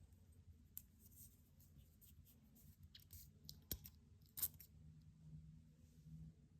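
Faint handling sounds of a perfume bottle and its packaging: scattered small clicks and taps, with two sharper clicks a little past halfway.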